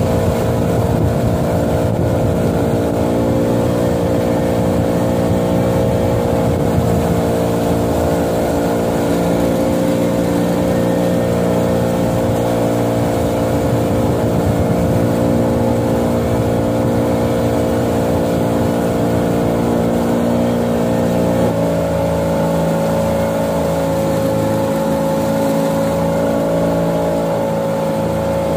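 Boat's outboard motor running at a steady trolling speed, with a constant engine note. About two-thirds of the way through, the note shifts slightly, then holds steady again.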